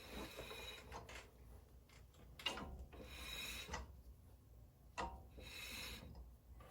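Intermittent metal-on-metal scraping and rubbing from a 2009 Honda CR-V's rusty front brake rotor as it is turned by hand, in about six short strokes with pauses between. It comes from rust built up on the rotor's edge, which is the cause of the car's brake grinding.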